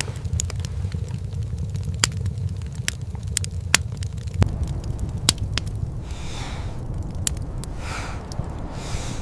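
Campfire crackling with scattered sharp pops over a steady low rumble, and two short hissing swells near the end.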